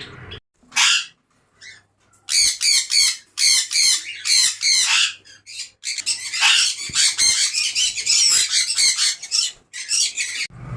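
Pet parrots squawking: one call about a second in, then from about two seconds in a dense run of loud, harsh, high-pitched calls, several a second, breaking off shortly before the end.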